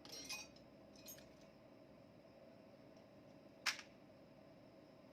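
A few light clicks and taps of parts and tools being handled while a small engine is put together, with one sharp click, the loudest, a little past three and a half seconds in, over a faint steady hum.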